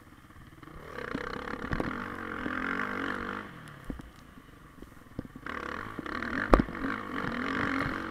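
Motocross dirt bike engine ridden hard on a dirt track. The throttle opens about a second in, eases off around four seconds and opens again at about five and a half seconds. Small knocks run through it, and the loudest event is one sharp thump about six and a half seconds in.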